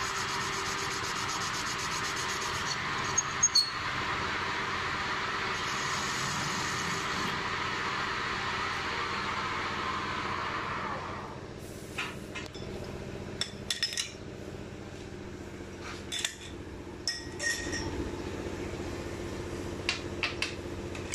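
Metal lathe cutting steel: a steady cutting noise over the machine's hum for about the first ten seconds. Then the cut ends and a run of sharp metal clinks and knocks follows as the four-jaw chuck is worked with a steel tool.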